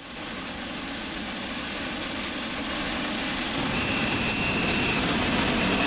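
Hot air balloon's twin propane burners firing in one long steady burn, a little louder after about three and a half seconds.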